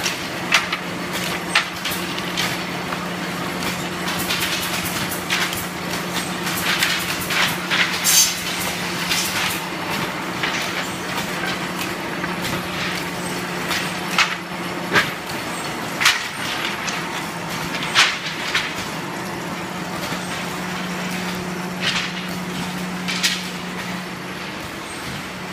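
Wooden-stick processing machine running: a steady motor hum with frequent sharp clacks and knocks as the wooden sticks rattle through its chain-driven roller feed.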